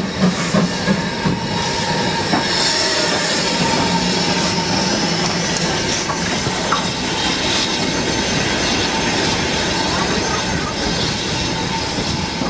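Ivatt Class 2 steam locomotive pulling away: its last few exhaust beats in the first second, then its coaches rolling past with a steady rumble of wheels on rail, a few clicks from the rail joints and a faint high squeal from the wheels.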